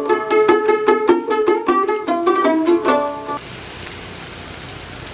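Background music with a quick melody of plucked-string notes, which cuts off suddenly a little over three seconds in, leaving a steady hiss.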